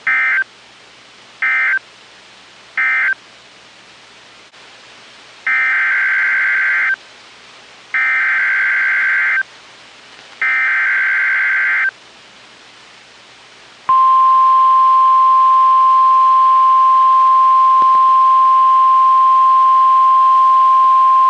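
NOAA Weather Radio emergency alert signalling, in warbling data bursts. First come three short bursts, the end-of-message code closing the previous warning, then three longer bursts, the SAME header of the next alert. About 14 seconds in, the steady 1050 Hz warning alarm tone begins and holds, announcing a severe thunderstorm warning.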